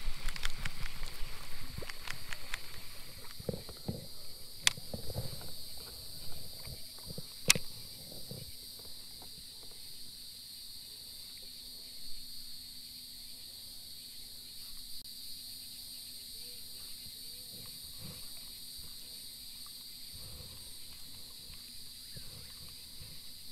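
Steady high-pitched chorus of evening insects. In the first eight seconds or so, scattered knocks of handling rod and kayak, with two sharp clicks.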